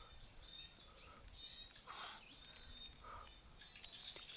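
Faint light clicks and crackles of quail eggshell being picked off a boiled egg, with short faint chirps repeating every second or so in the background.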